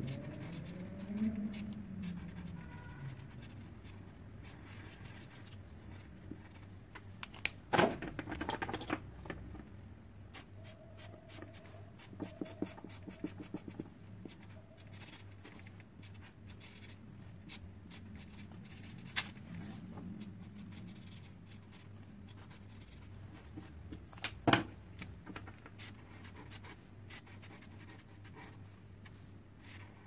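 Felt-tip markers scratching across a small paper label as a name is lettered and coloured in, with scattered light taps and two louder knocks as markers are changed and put down on the table.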